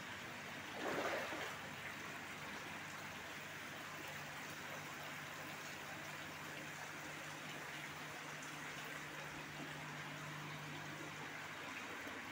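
Faint steady sound of water running and trickling in concrete fish-rearing tanks, over a low steady hum, with a brief louder rush about a second in.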